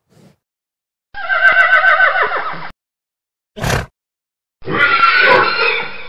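Horse whinnying twice: first a quavering neigh that falls in pitch, then a rougher, louder one near the end. There is a short breathy burst between them.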